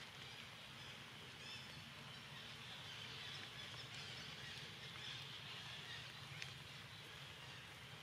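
Faint outdoor ambience: a steady high-pitched hiss with a low hum underneath, and a single faint click about six and a half seconds in.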